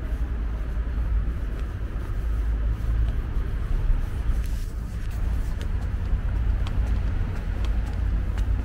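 City street ambience: a steady low traffic rumble with faint scattered ticks.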